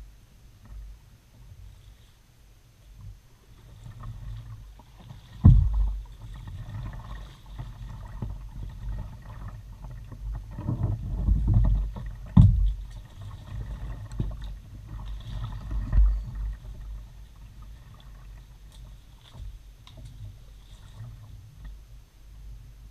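Kayak being paddled through calm water, heard from its bow: paddle strokes splashing and dripping over a low rumble from the hull. A few dull thumps sound, the loudest about five seconds in and others around twelve and sixteen seconds.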